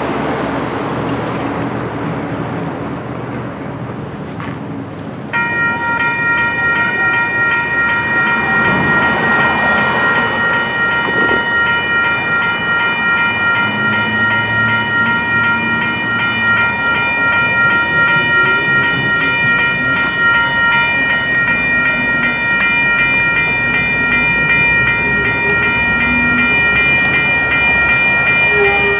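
Railroad crossing's electronic bell starts ringing about five seconds in and rings on steadily over the low rumble of a train. Near the end a high, wavering squeal joins in, like train wheels squealing on the rail.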